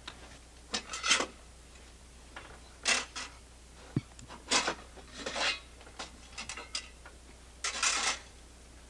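A series of short scraping and rubbing sounds, about six in all, with a few light knocks, as a fiber cement siding plank is worked into place.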